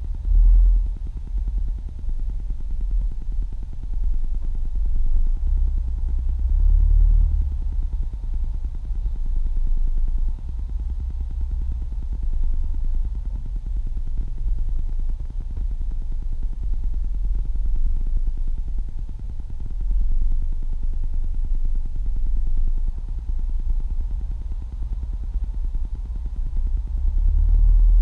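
Low, steady rumble of a car's engine and road noise heard inside the cabin in slow stop-and-go traffic, swelling a few times.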